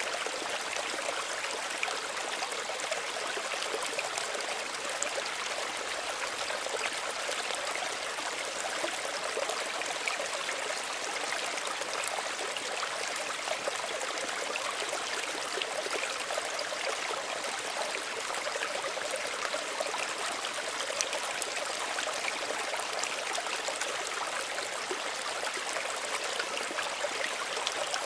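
Small stream running over stones: a steady rush of water with fine trickling and splashing, unchanging throughout.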